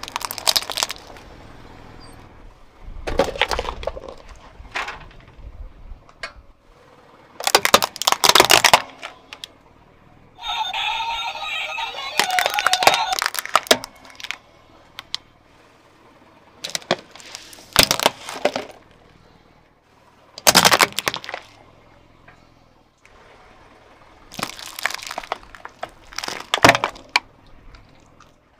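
Brittle plastic objects (plastic sunglasses and small plastic containers) cracking and crunching as a car tyre rolls over them: a series of sharp cracks and snaps every few seconds.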